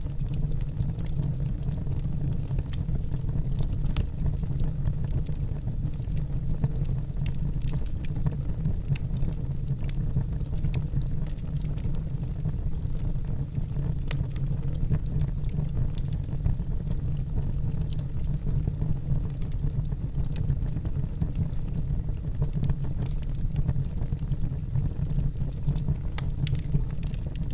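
Wood campfire burning: a steady low rumble with sparse small crackles and pops scattered through it.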